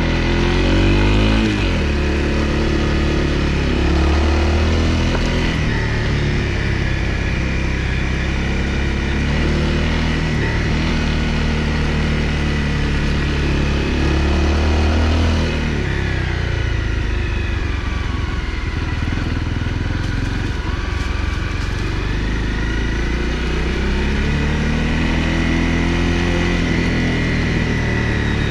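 Honda CRF250L's single-cylinder engine under way on a dirt road. The engine note climbs with the throttle at the start, falls back about halfway through, and climbs again near the end.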